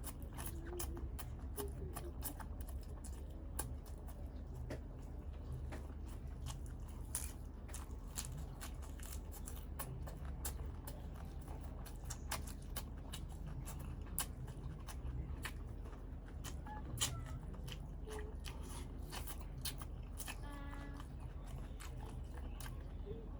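A person chewing and biting into balut, the boiled fertilised duck egg, with many small crunches and mouth clicks over a steady low hum.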